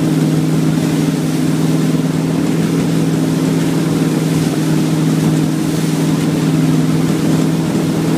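Wakesurf boat's engine running at a steady cruising speed, a constant drone, over the rushing wash of the boat's wake.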